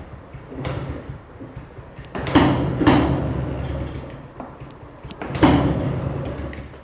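1978 Yezdi B-type 250 cc two-stroke single being kick-started: several hard kicks, each a sharp clatter followed by a short low rumble of the engine turning over that fades away without it starting. The choke is off, the reason it does not catch.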